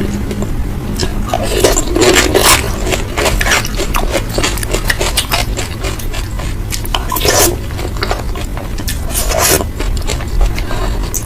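Close-miked eating: chewing and crunching of food, with a few louder scraping crunches around two, seven and nine and a half seconds in, over a steady low rumble.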